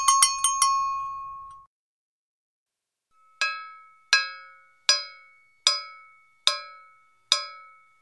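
A cowbell struck in a quick cluster of about five strikes that rings out over a second and a half. After a pause of nearly two seconds it is struck six times at an even pace, about one strike every 0.8 seconds, each ringing briefly, with a slightly higher ring than the first cluster.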